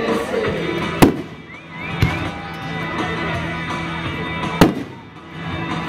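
Fireworks aerial shells bursting: three sharp bangs, about one, two and four and a half seconds in, with music playing throughout.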